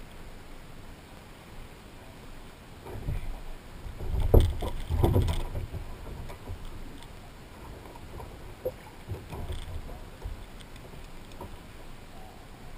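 Hollow knocks and thumps on the plastic hull of a sit-on-top kayak as the man and the dog on his lap shift their weight. The knocks cluster about three to five seconds in, the loudest near four and a half seconds, with a few lighter knocks later over a low, steady background.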